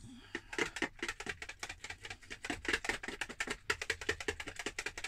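Pancake batter being whisked briskly in a mixing bowl: rapid, even clicking strokes of the utensil against the bowl, about nine a second.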